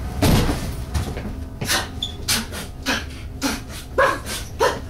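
A quick series of short grunts and panting cries, about two a second, mixed with rustling and scuffling from two people struggling in a staged attack.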